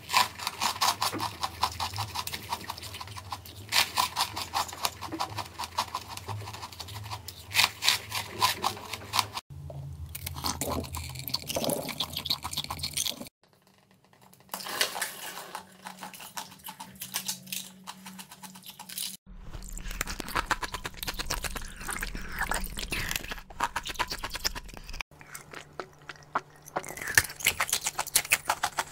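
Ice being bitten and chewed close to the microphone: dense crisp cracking and crunching, in a string of short takes that break off abruptly several times, each with its own faint low hum underneath.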